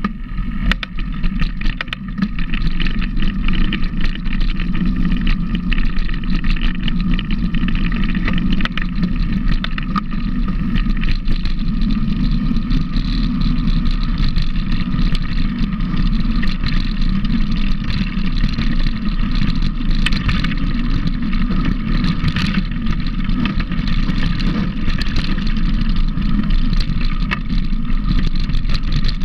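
A vehicle engine running steadily, with no change in speed.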